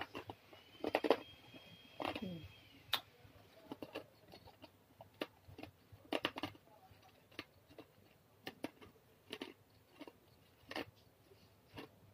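A bird call in the background about a second in, one held high note with a falling tail, over scattered soft clicks and small mouth and tissue sounds.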